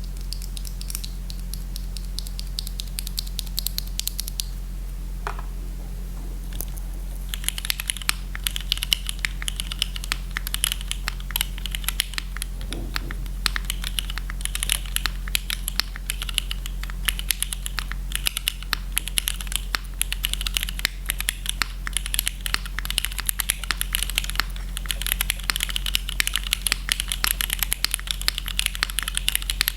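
Typing on a QK Neo80 mechanical keyboard with Cherry Hyperglide Black linear switches, an aluminium plate and no foam, giving a clacky sound. There are a few scattered key presses at first, then fast continuous typing from about seven seconds in, over a steady low hum.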